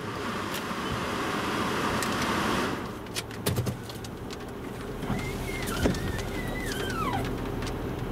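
A car's electric power window whirring shut, stopping abruptly about two and a half seconds in with a couple of knocks. After that the car's engine hums low and steady, with a brief high squeak sliding down in pitch past the middle.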